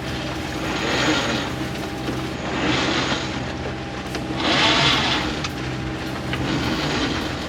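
Sailboat's engine running steadily under way, with swells of rushing noise every couple of seconds and a few sharp clicks, as when the headsail is being winched out.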